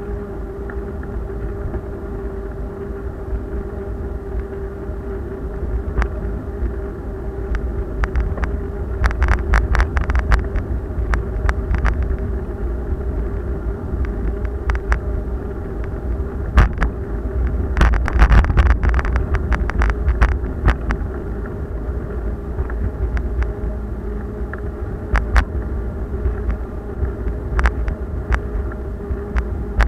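Ride noise picked up by a camera mounted on a moving bicycle: a constant low rumble of wind and vibration with a steady hum underneath. Bursts of clattering rattles come as the bike rolls over rough, cracked paving, most in the middle of the stretch.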